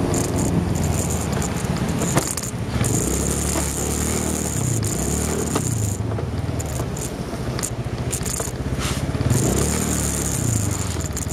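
Motorcycle engine running from an onboard camera, its pitch rising and falling as the throttle opens and closes, under steady wind and road noise. Scattered clicks and rattles come through from the mount.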